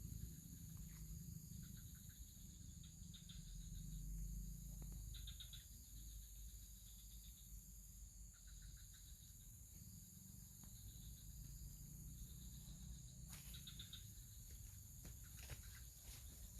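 Insects chirping faintly outdoors: a steady high-pitched drone with short trills repeating every second or two, and a few light rustles or clicks near the end.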